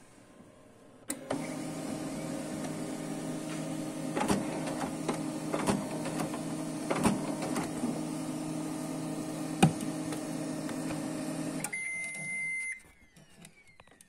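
HP LaserJet Pro MFP M127fw laser printer's paper-feed motor and rollers running for about ten seconds, with a few sharp clicks, as the pickup roller tries and fails to pull paper from the tray. The speaker blames a worn rubber pickup roller that slips on the sheet. The run stops and a short electronic beep follows as the printer reports a paper-load error.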